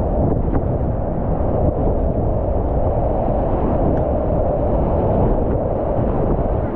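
Whitewater rapid heard from a kayak running it: a loud, steady rush of churning water and splashing over the bow, heaviest in the low end.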